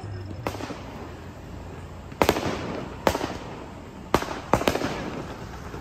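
Aerial fireworks bursting overhead: about six sharp bangs at irregular intervals, the loudest just past two seconds in and three close together near the end, each followed by an echoing tail.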